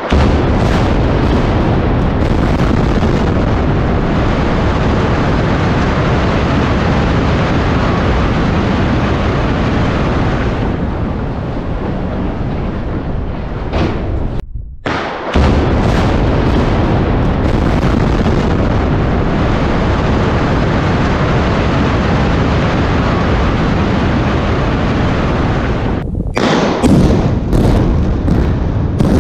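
Explosive demolition of a steel-framed power-station building: a long, loud rumble of blasting and collapse, broken twice by sudden cuts. Near the end comes a quick string of sharp blasts as the cutting charges fire.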